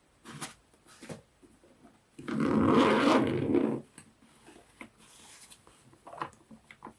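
Handling sounds: a few short rustles and light knocks, and one louder scraping rustle about two seconds in that lasts about a second and a half.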